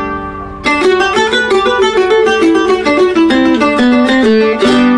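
Hybrid son jarocho requintito, with two single bass strings and two double courses, played: a ringing chord, then about half a second in a quick melodic run of picked notes, closing near the end with a chord that rings out.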